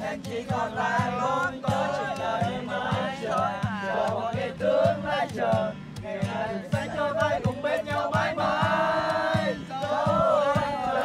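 Acoustic guitar strummed in a steady rhythm while several voices sing a song together.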